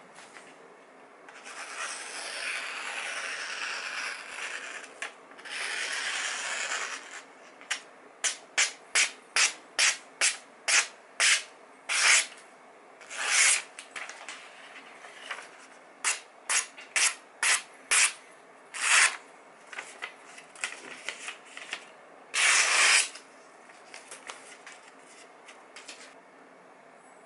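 Freshly sharpened knife slicing through a sheet of printed paper as a sharpness test: two longer rustling passes, then a run of short quick slices, about two to three a second, with a few longer cuts among them.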